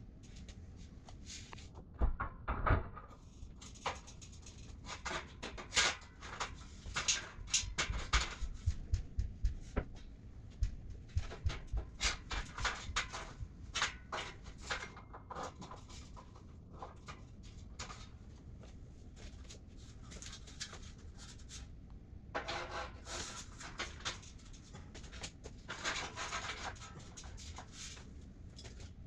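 Steel shelving beams and welded uprights of a Husky storage unit knocking and clanking as they are handled and hooked into place: a run of sharp knocks for the first half, a quieter spell, then more rattling near the end.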